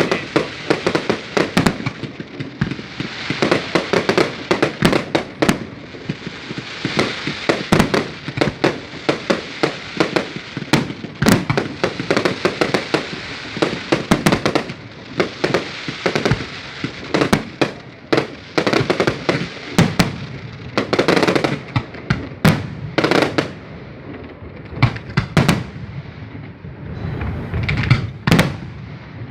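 Fireworks display: aerial shells bursting in a rapid, continuous barrage of sharp bangs, several a second, with crackling noise between them.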